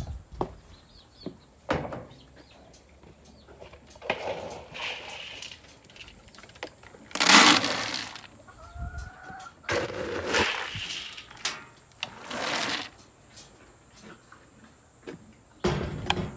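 Dry feed being scooped and poured into a container: several short rattling pours, each under a second, with knocks and clatters in between.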